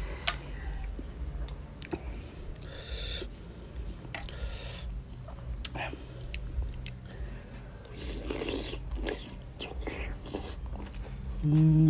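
Close-miked eating of a raw oyster with chili sauce: light clicks of a spoon against shell and glass as the sauce is spooned on, then slurping the oyster off its shell and chewing. Near the end, a short loud hummed "mm".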